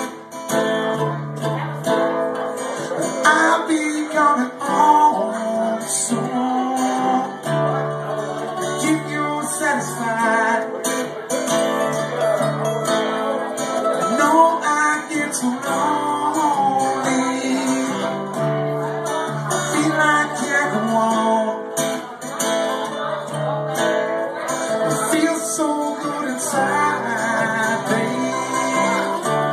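Acoustic guitar strumming and mandolin picking together, a live acoustic duo playing a tune with no lyrics transcribed.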